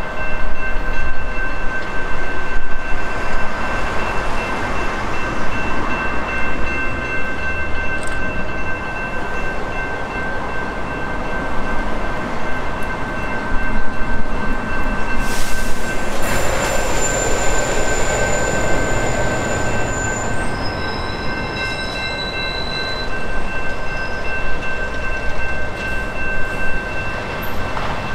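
Level crossing warning bells ringing steadily as the crossing's lights flash. About halfway through, a louder rush of train noise swells in as a suburban electric train passes through the crossing.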